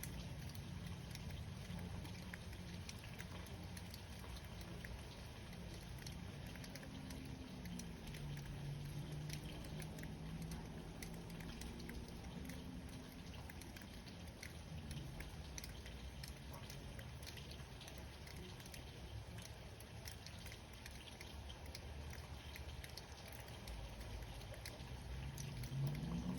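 Rain falling, with scattered raindrop taps over a low, steady rumble.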